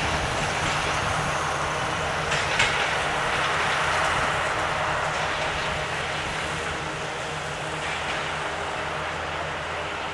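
Diesel-hauled passenger train rolling past and away on the track: a steady rumble of wheels and engine, with a couple of sharp wheel clacks about two and a half seconds in, slowly fading.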